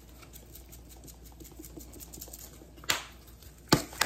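Grated Parmesan being shaken out of a shaker can, a faint light patter, then three sharp taps on the can near the end to loosen cheese that keeps sticking inside.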